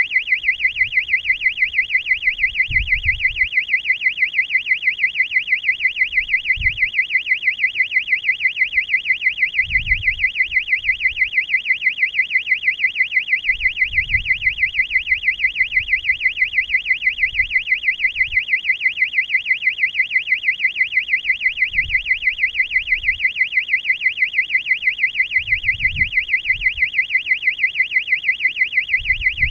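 Electronic buzzer sounding a continuous high-pitched warbling alarm tone, pulsing about four times a second, with faint low thuds now and then.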